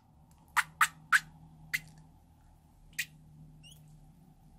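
A liquid-filled latex balloon squeezed by hand, giving about five short, sharp squirting spurts as glue-like liquid is forced out of its neck, spaced unevenly over the first three seconds.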